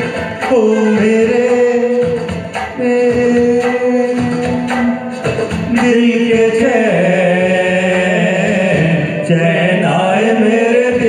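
A group of men singing a song into handheld microphones, holding long sung notes, with regular beats underneath.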